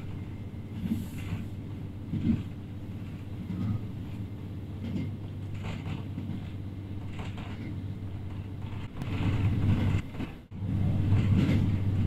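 Running sound of a JR Hokkaido H100 DECMO diesel-electric railcar heard from inside the car: a steady low drone with scattered knocks from the wheels and track. It grows louder about nine seconds in, with a brief dip shortly after.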